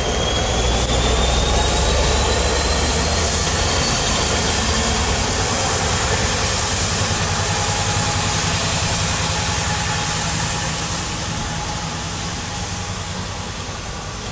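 Class 66 diesel locomotive, its two-stroke V12 engine running as it moves away along the track, with a high whine rising in pitch over the first few seconds. The sound is steady and loud, easing slightly toward the end as the locomotive draws away.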